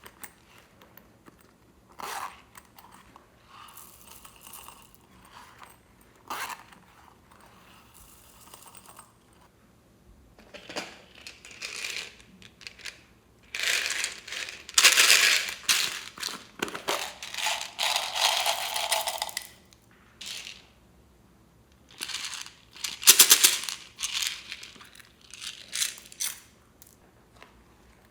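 Slime being squeezed and worked by hand, crackling and clicking in irregular bursts. The loudest stretch is in the middle.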